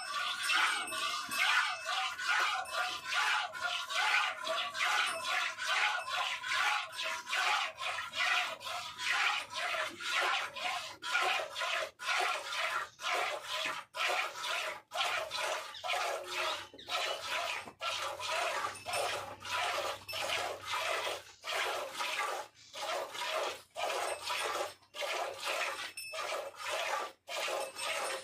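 A cow licking a calf's coat: quick, repeated rasping strokes of a rough tongue on hair, with short gaps between them.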